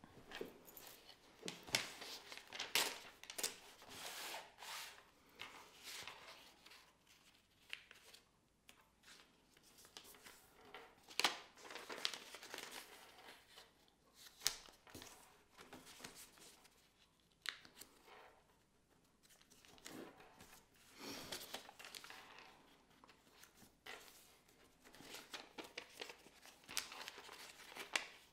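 A sheet of notepad paper being folded by hand into a paper airplane: irregular crinkling and rustling as it is handled, with short sharp scrapes as the folds are creased down.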